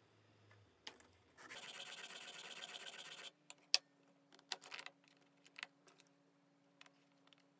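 A rasping scrape on wood for about two seconds, then a scatter of light clicks and taps as small wooden parts are handled in a metal drill-press vise, over a faint steady hum.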